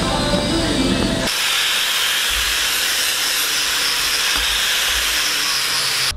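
Angle grinder with a polishing disc running against stainless steel sheet, a steady hiss. It cuts in abruptly about a second in, replacing background music.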